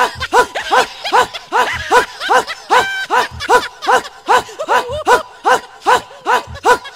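A woman's voice making a fast, even string of short yelping vocal sounds, about three a second, each one rising and falling in pitch, like rhythmic laughing or barking.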